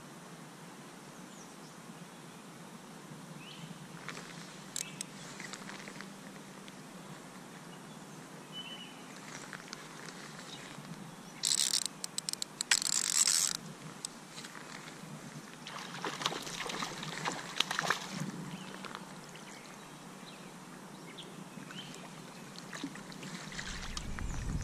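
A hooked rainbow trout being played in and netted, over the faint steady noise of a slow creek. There are two clusters of short noisy bursts, the louder about halfway through and another a few seconds later, as the fish fights near the surface, and a low rumble near the end as the landing net goes into the water.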